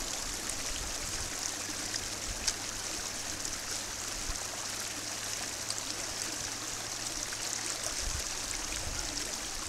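A stream running steadily, with a few faint knocks of a small shovel digging into soil.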